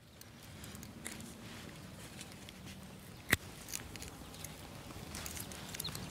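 Quiet outdoor ambience with faint rustling and scattered small ticks from fishing nets being handled, and one sharp click about three seconds in.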